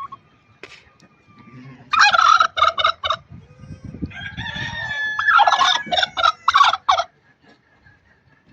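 Domestic turkey gobbling: two loud rapid rattling gobbles, about two seconds in and again about five seconds in.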